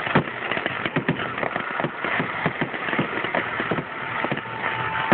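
Aerial fireworks bursting: a dense, irregular run of bangs and crackles, with a thin steady whistle-like tone in the last second.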